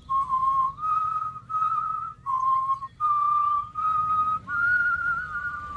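A person whistling a tune: a run of short held notes with brief breaks between them, stepping between a lower and a higher pitch, then sliding up to a higher note a little past halfway.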